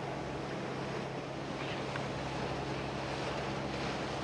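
Motor boat running steadily under way: a constant low engine drone, with wind buffeting the microphone and water rushing past the hull.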